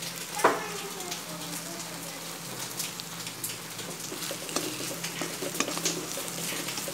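Soya keema frying in oil and ghee in a kadai: a steady sizzle, with the metal slotted spatula stirring and scraping it against the pan in scattered clicks and one loud clink about half a second in.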